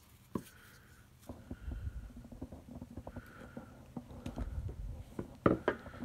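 Hand-handling noise from a stack of battery cells and their plastic terminal block: scattered light clicks and rubbing, with a few sharper clicks about five and a half seconds in.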